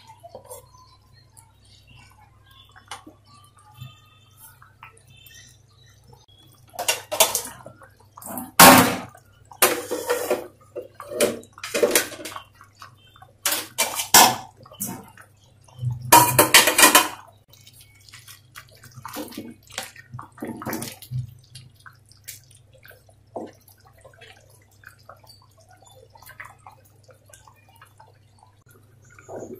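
Thick vegetable khichuri (rice-and-lentil porridge) bubbling in an aluminium pot, with a run of loud wet plops and splutters from about seven to seventeen seconds in and softer ones after, over a steady low hum.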